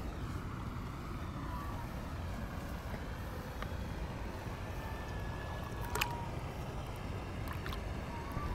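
Steady low rumble of wind on the microphone, broken by a few sharp clicks, the loudest about six seconds in.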